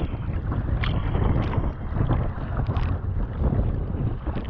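Wind buffeting the microphone with a heavy low rumble as a sea kayak is paddled through choppy sea, with water splashing against the hull and a few sharper splashes of paddle blades dipping in.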